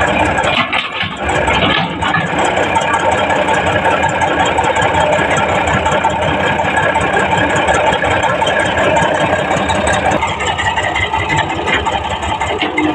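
Heavy diesel engine of earth-moving machinery running loudly and steadily, its note shifting about ten seconds in.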